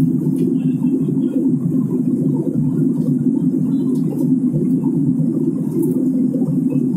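Jet airliner cabin noise in flight: the steady, deep drone of the engines and rushing air, heard from a window seat.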